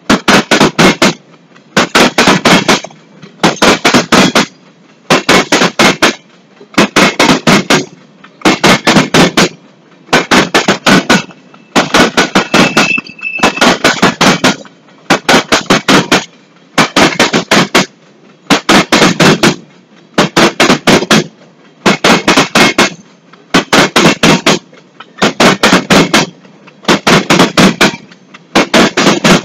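Steel wheels of a train of empty aggregate gondola wagons clacking over rail joints as it rolls past: a quick group of sharp clacks as each pair of trucks crosses, repeating about every two seconds, car after car.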